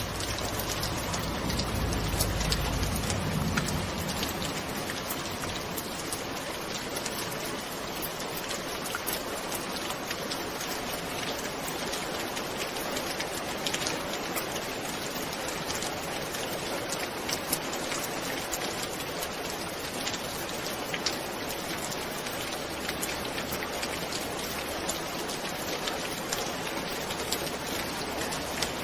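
Steady rain falling, with many sharp individual drop impacts over an even hiss. A low rumble sits under it for the first few seconds, then fades.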